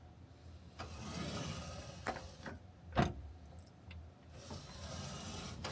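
Parts of a miter saw being moved and worked by hand: a handful of clicks and knocks, with rubbing and scraping between them. The parts feel as if they might want grease.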